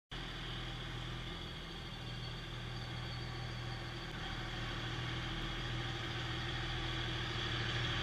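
Dodge Ram 3500 dually's 5.9-litre Cummins turbo diesel running at low idle as the truck backs slowly, growing gradually louder as it comes closer.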